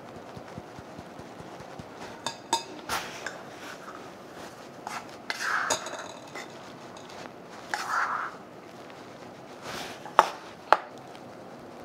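Kitchen taps and clinks while flour is sifted: a metal mesh sieve knocked against a glass mixing bowl, with some scraping as flour is tipped into it. Two sharp clinks about ten seconds in, the loudest sounds, as a small bowl is set down.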